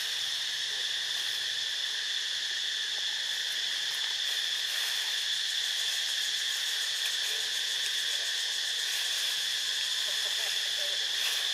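Steady, high-pitched insect chorus: a constant drone that holds without a break.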